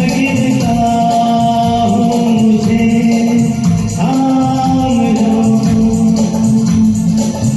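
Karaoke singing: voices singing a Hindi film song over a recorded backing track, with long held notes.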